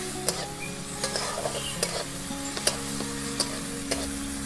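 Prawns sizzling as they fry in hot oil in a metal karai, with a metal spatula scraping and tapping against the pan several times as they are stirred.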